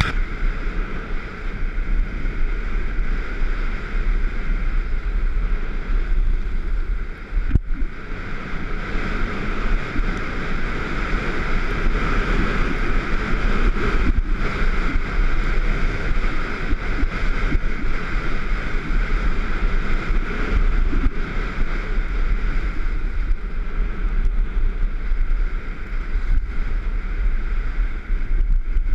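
Skis running on packed snow with a steady hiss and scrape, under wind buffeting the microphone as the skier descends.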